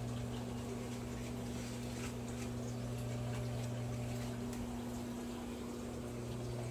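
Hot tub pump running with a steady low hum.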